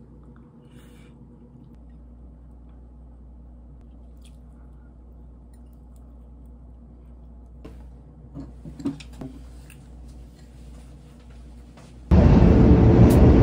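Quiet room with faint eating sounds at a table and a few light clicks and taps, one a little louder about nine seconds in. Near the end a much louder, steady noise cuts in abruptly.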